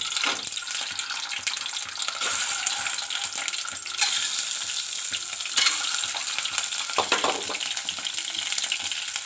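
Peeled, scored hard-boiled eggs sizzling and spattering in hot mustard oil in an aluminium pot as they are added one by one: a steady frying hiss with scattered sharp crackles.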